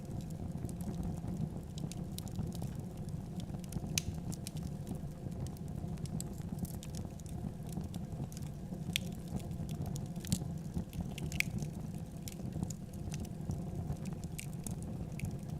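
Wood fire burning in a fireplace: a steady low rumble of the flames with scattered crackles and pops.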